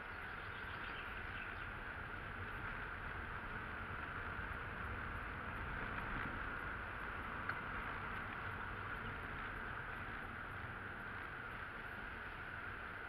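Car driving slowly, heard from inside the cabin: a steady hum of engine and tyre noise with a low rumble, and one small click about halfway through.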